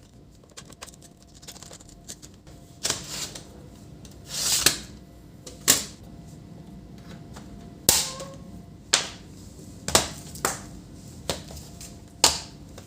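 Sharp clicks and clacks from a screwdriver and the plastic case of a Lenovo laptop as its bottom cover screws are taken out and the cover is worked loose. There are about ten separate, irregular clicks and one longer scraping rattle about a third of the way through.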